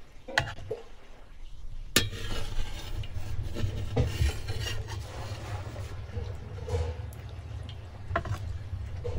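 A metal slotted skimmer knocking and scraping as boiled beef brains are scooped from a pot and set onto a wooden tray, with a few sharp clinks, over a steady low rumble.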